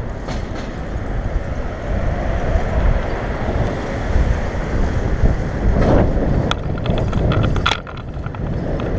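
Wind rumbling across an action camera's microphone while cycling through city traffic. A few sharp knocks and clicks come near the end.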